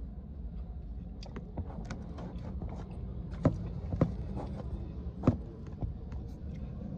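Handling noise from a phone being moved and repositioned: scattered light taps and clicks, with three sharper knocks in the middle, over a steady low hum inside the car.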